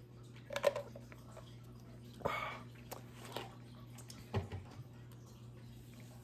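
Small handling noises: a click or knock, a short rubbing scrape and a few light ticks and a dull thump, over a steady low hum.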